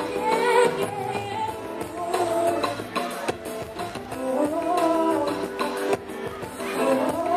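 Music: a woman singing held, wavering notes over instrumental backing.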